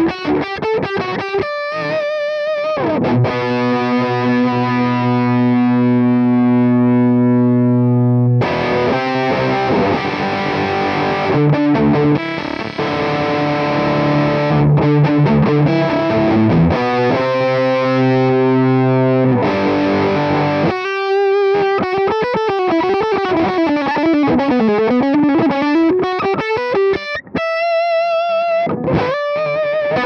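PRS SE Custom 22 semi-hollow electric guitar played through the Sonicake Matribox II Pro's Sardar Dist model, a high-gain British-voiced distortion, into a Celestion cabinet impulse response. It alternates wavering single notes with long sustained distorted chords. In the last third a single note slides down and back up in pitch.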